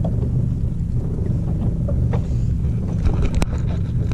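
Steady low rumble aboard a small fishing boat. A few sharp clicks and knocks come about three seconds in as a small fish is handled and unhooked.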